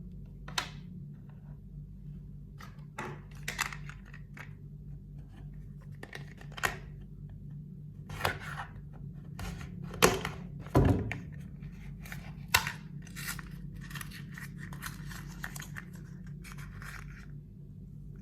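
Packaging being torn open and handled: a string of irregular tearing and rustling sounds with a few sharper knocks, the loudest about ten to eleven seconds in, over a steady low hum.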